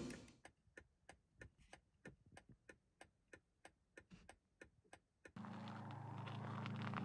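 A steady run of sharp ticks, about three a second, over near silence. About five seconds in a steady low hum cuts in suddenly and the ticks stop.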